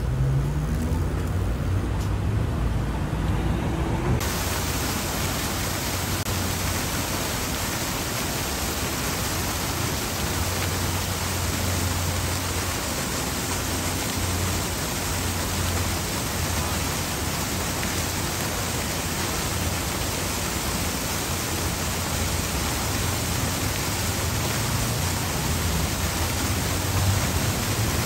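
Fountain jets splashing into their basin, a steady hiss that starts abruptly about four seconds in, over the low rumble of street traffic passing.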